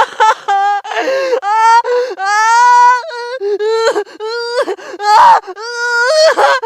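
Scary ringtone: a high-pitched, wavering voice in short broken phrases that swoop up and down in pitch.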